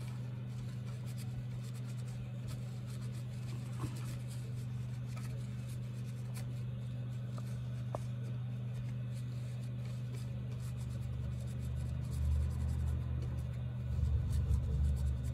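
Wad of tissue rubbing and scraping over the chips of a MacBook Pro logic board, wiping them clean, over a steady low hum. Deeper rumbles from handling come about twelve and fourteen seconds in.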